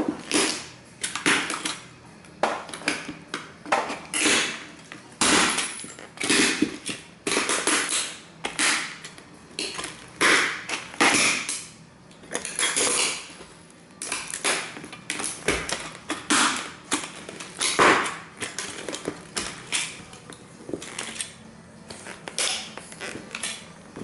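Cowboy boots stomping on and grinding the crushed remains of model train houses: a long series of crunching, crackling stomps, about one to two a second, as the flattened buildings break up underfoot.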